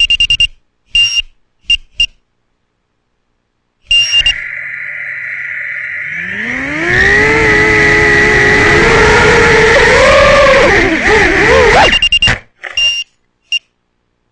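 A run of short, high electronic beeps, then the Realacc X210 racing quadcopter's Racerstar BR2205 2600KV brushless motors spinning up with a rising whine about six seconds in. They run for about five seconds, the pitch wobbling near the end, and cut off suddenly, followed by a few more beeps.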